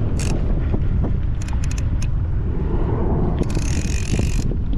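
Wind buffeting the body-mounted camera's microphone as a steady low rumble. A Penn Fathom conventional fishing reel whirs mechanically for about a second about three and a half seconds in, with a few light clicks earlier.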